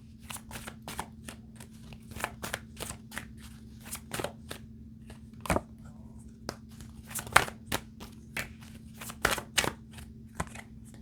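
Tarot cards being shuffled and handled: a string of irregular light clicks and taps, a few a second, some sharper than others.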